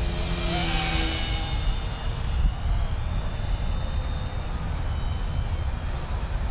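Small electric RC helicopter, a Blade 130 S in a LEGO Technic body, flying: a high-pitched motor and rotor whine with several tones, loudest about a second in, then fading as it moves off. A steady low rumble, like wind on the microphone, runs underneath.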